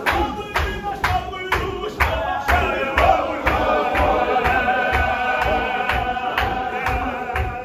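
Men chanting together in a Qadiri Sufi zikr, long sung lines over a steady beat of about two sharp strikes a second, with low thuds of bare feet stamping as the circle moves round.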